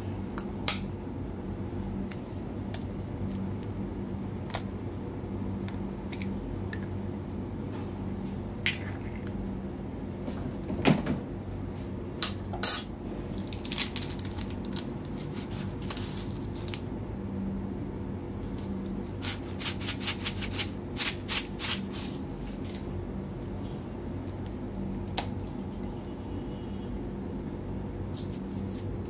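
An egg tapped against a metal spoon and cracked open over a china plate: scattered sharp clicks and taps, the loudest about eleven seconds in with a quick rattle just after, then clusters of small clicks of spoon and shell on the dish. A steady low hum runs underneath.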